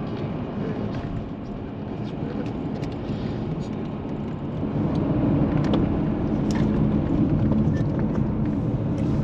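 An engine running steadily, with a low hum that grows louder about five seconds in and a few faint scattered clicks.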